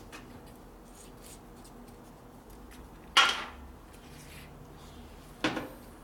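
Two sharp clanks of metal parts being handled on a workbench, a little over two seconds apart, the first louder.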